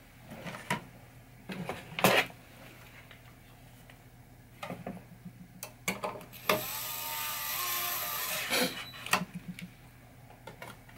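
Metal and plastic parts of a pinball chime box being handled and fitted: a scatter of sharp clicks and knocks, the loudest about two seconds in. About six and a half seconds in, a steady rasping, ratchet-like tool sound runs for about two seconds as the screws are run down, followed by a few more clicks.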